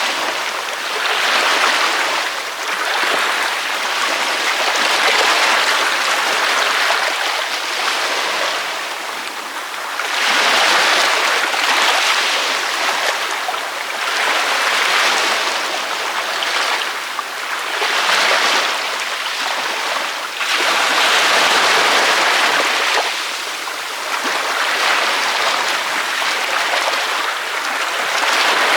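Ocean waves breaking on a beach: a continuous rush of surf that swells and eases every few seconds, one wave after another.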